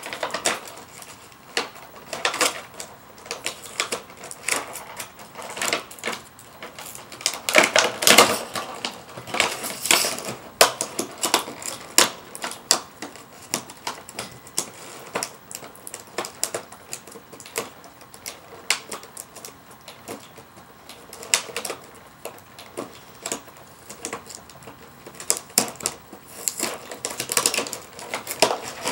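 Hands working at a taped cardboard toy box and its plastic packaging, cutting and peeling stubborn tape with a key: an irregular run of clicks, scrapes and rustles, with louder clusters of handling about a third of the way in and near the end.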